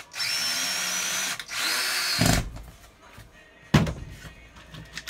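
Cordless drill driving screws, running in two bursts of a motor whine, the first about a second long and the second shorter, ending with a thud. A single sharp knock follows a little later.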